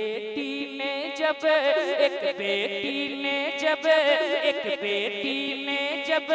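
Man singing a naat into a stage microphone, a drawn-out ornamented vocal line with long held notes.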